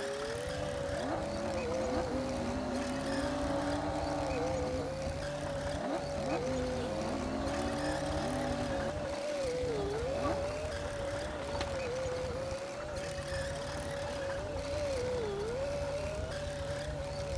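Komatsu D60P bulldozer's diesel engine running steadily with a low rumble and a high, steady whine that sags briefly twice.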